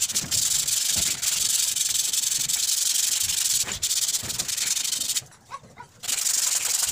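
Sandpaper rubbed by hand back and forth along a rusty tubular steel chair-base leg, a steady scratchy scraping. It stops for about a second around five seconds in, then resumes.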